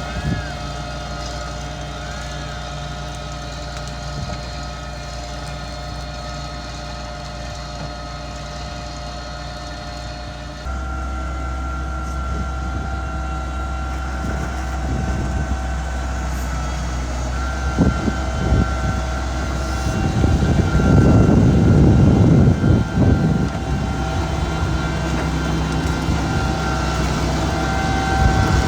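Mitsubishi MG430 motor grader's diesel engine running steadily; its pitch and level change abruptly about eleven seconds in. Past the middle come a few knocks, then a louder, rough grinding noise lasting about three seconds.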